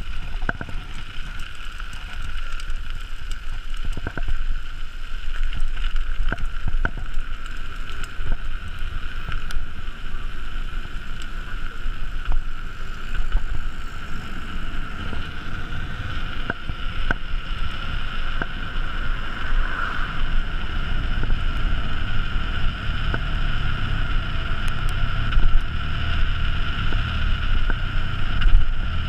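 Mountain bike riding down a forest trail: a steady high buzz and rolling noise with wind on the microphone, and a few sharp knocks from bumps in the first seven seconds.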